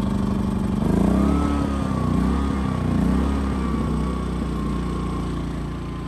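Westinghouse iGen2500 inverter generator's engine running just after a pull start with the choke on. About a second in its speed rises and wavers unevenly for a couple of seconds, then settles into a steady run.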